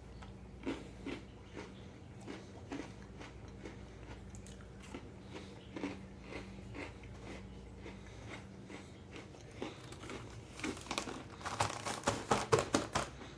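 Chewing and crunching Oreo cookies close to the microphone: soft, scattered crunches that come thicker and louder in the last few seconds.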